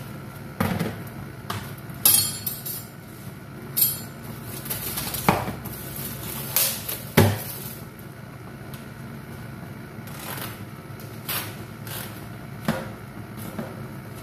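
Kitchen handling at a counter: a knife cutting kernels off a corn cob, with scattered clinks and knocks of the knife, bowl and dishes, about a dozen in all, over a steady low background hum.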